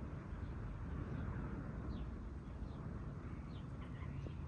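Faint steady background hum with faint birds chirping, short falling chirps every half second or so.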